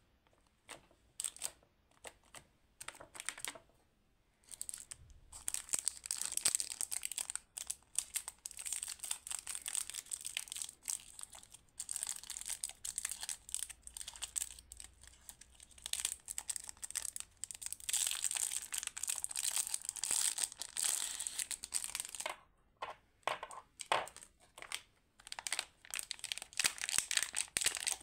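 Clear cellophane and plastic lollipop wrappers crinkling under fingers as they are handled and unwrapped: a few separate crackles at first, then dense crinkling from about five seconds in that thins out for a moment a few seconds before the end.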